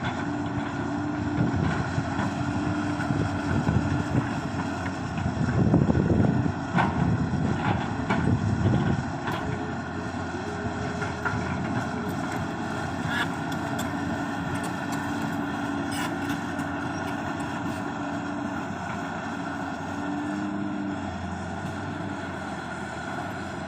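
Hydraulic excavator's diesel engine running steadily, growing louder for a few seconds about a quarter of the way in, with a few short knocks.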